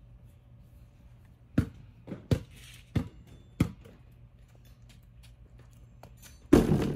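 A basketball bounces on a brick-paver driveway, several single bounces about two-thirds of a second apart. Near the end comes a louder, longer clatter as a shot strikes the backboard of a MaxKare portable basketball hoop.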